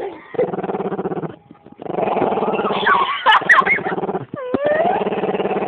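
Dog growling in long rumbling stretches while guarding his bone, pausing briefly about a second and a half in, with higher gliding whine-like sounds over the growl near the middle.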